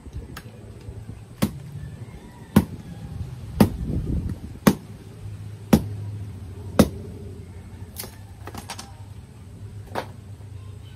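Bolo knife chopping dried coconut frond stalks: six sharp strikes about a second apart, then a few lighter knocks of wood near the end.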